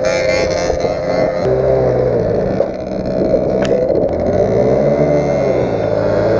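Small 50cc moped engines revving while the scooters spin in snow, the engine pitch dipping and swelling. A short sharp click comes about three and a half seconds in.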